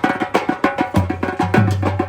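Music driven by fast hand-drum percussion: a quick, even run of sharp strokes over deep bass drum strokes that slide down in pitch about once a second.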